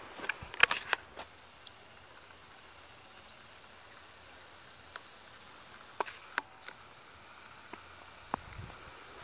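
A few crunching footsteps on a thin layer of snow over dead leaves, the loudest about a second in. Then a faint steady hiss with a few isolated clicks.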